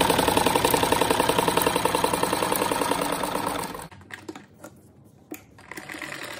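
Domestic sewing machine stitching at a fast, steady rate, then stopping about four seconds in, followed by a few light clicks.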